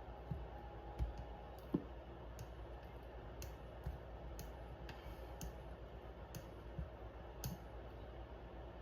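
Light, irregular clicks and taps of small metal parts as a folding knife and its screws are handled during reassembly, about a dozen clicks spaced unevenly.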